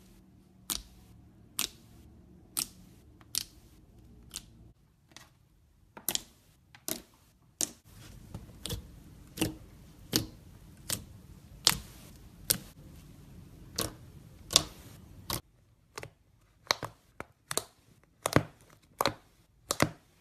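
Glossy slime being pressed and poked, giving a series of sharp clicking pops about one a second, coming a little closer together toward the end.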